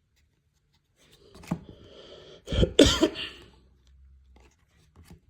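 A man coughing: a short cough about a second and a half in, then a louder bout of two or three coughs near the middle.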